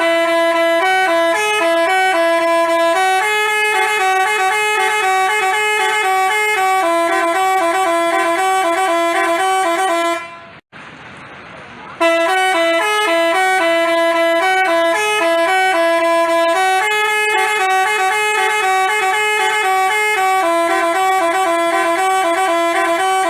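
Telolet basuri bus horn playing a tune of quick stepped notes. The tune breaks off about ten seconds in and, after a short pause, starts again from the beginning.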